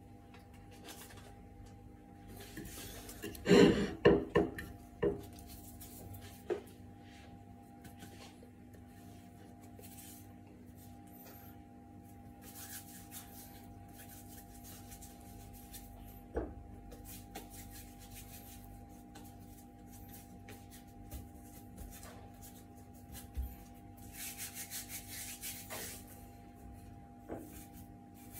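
Hands working soft bun dough on a wooden board: rubbing and patting. A cluster of loud knocks comes about four seconds in, and there are scattered taps and a longer stretch of rubbing near the end. A faint steady hum sits underneath.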